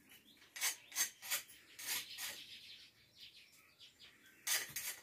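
Steel spoon scraping crushed peanuts out of a stone mortar into a small bowl: a string of short, light scrapes and clicks, the loudest near the end.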